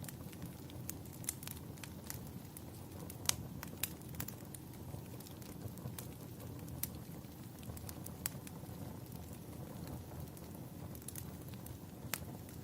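Wood fire crackling, with scattered sharp pops over a low, steady rumble; the loudest pops come a little over three seconds in.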